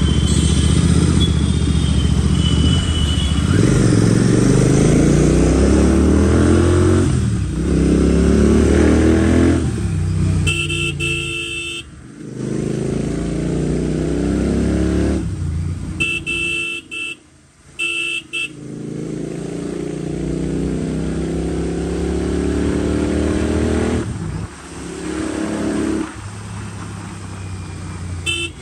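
Motorcycle engine breathing through a Red Rooster Performance aftermarket exhaust, revving up in pitch and dropping back several times while being ridden. A vehicle horn honks twice in the middle and once more near the end.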